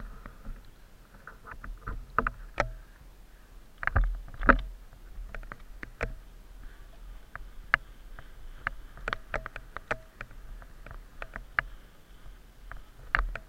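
Mountain bike ridden on tarmac, giving off sharp, irregular clicks and ticks as it is pedalled. The rider puts the clicking down to a pedal that has no play but probably needs tightening.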